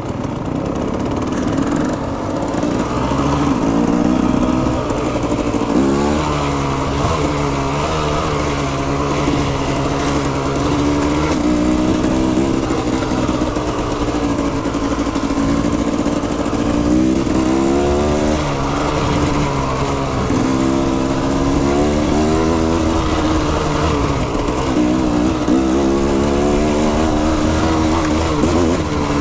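Enduro motorcycle engine being ridden off-road, its revs climbing and dropping again and again as the throttle opens and closes.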